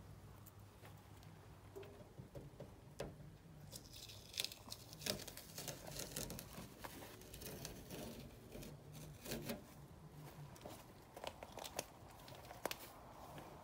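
Adhesive tape or a sticker being peeled and torn by hand, a crackling rip loudest about four to six seconds in, among scattered light clicks and knocks.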